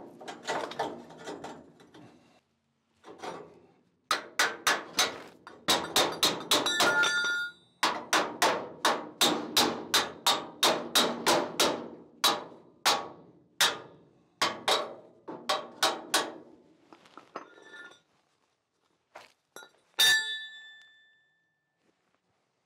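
A hammer knocking steel cross pieces into place against a trailer's steel frame: runs of quick metal knocks, about three a second, some ringing. A single louder ringing clank comes near the end.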